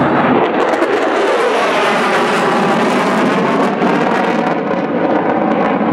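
B-1B Lancer bomber flying past with its four afterburning turbofan engines lit: loud, steady jet noise with a slowly sweeping, phasing quality.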